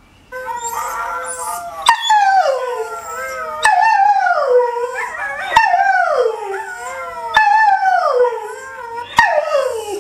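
Greyhound rooing: a string of about five long howls, each sliding down in pitch, with a sharp click at each break between them.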